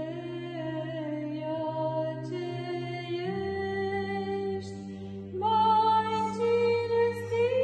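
A solo female voice sings Byzantine chant in a slow, ornamented line of held notes and small steps over a steady low drone (ison). The drone shifts to a lower note about three seconds in, and the voice grows louder and rises about two seconds later.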